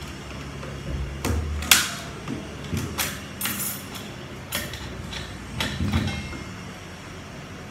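Metal parts of a U250 automatic transmission being handled during teardown: a run of sharp clinks and knocks, some with a brief metallic ring, the loudest about a second and a half in, dying away about six seconds in.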